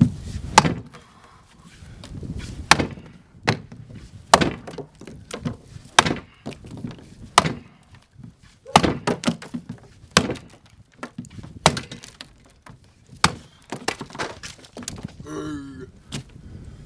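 Axe chopping a standing block: sharp thunks of the blade biting into the upright log about every one and a half seconds, with smaller knocks in between.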